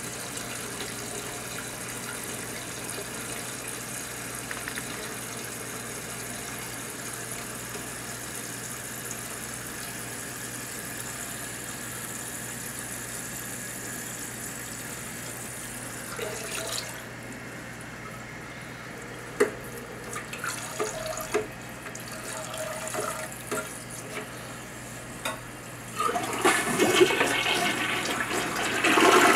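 Toilet tank refilling through its fill valve after a flush, a steady hiss of running water that shuts off about two-thirds of the way through, followed by a few small knocks. Near the end the toilet is flushed again and water rushes out.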